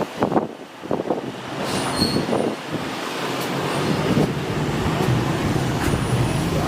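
A steady engine rumble with a low hum, growing louder over several seconds, after a few brief voice sounds at the start.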